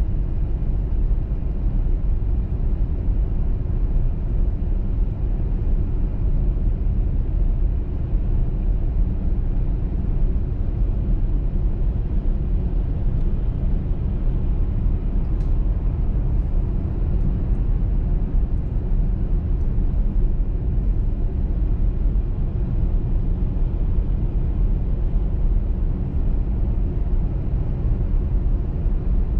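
Steady low rumble of a car driving on a motorway: tyre and engine noise, with a few faint ticks in the middle.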